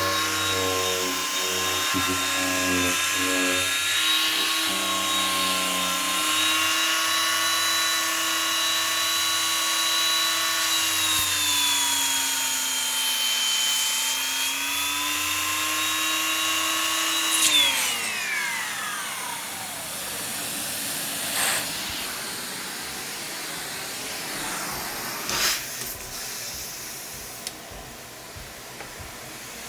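Allegro Champion MUA50 central vacuum motor running with a steady high whine, its pitch dipping and then recovering partway through. About two-thirds of the way in it switches off and the whine falls away as the motor spins down, leaving a quieter background with a few short clicks.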